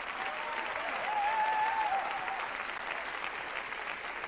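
Studio audience applauding, a steady dense clatter of many hands.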